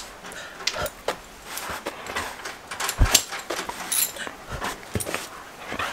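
Standard poodle nosing at close range, sniffing with scattered rustles and clicks. A dull thump about three seconds in.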